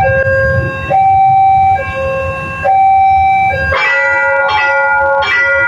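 Railway level-crossing warning alarm: an electronic two-tone siren alternating between a low and a high note, each held about a second, over a low rumble. A little under four seconds in it changes to a second crossing alarm, a bell-like chime struck about every three-quarters of a second.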